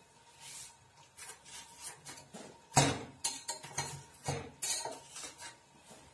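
A metal knife clinking and knocking against the metal cake tin and the pressure cooker pot as the steamed cake is checked and handled inside it: a string of sharp clinks, the loudest about three seconds in.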